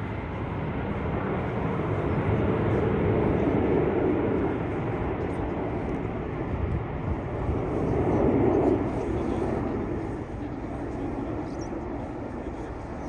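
Jet noise from the Red Arrows' BAE Hawk T1 jets flying their display: a broad rumble that swells louder twice as the aircraft pass, about three seconds in and again around eight seconds.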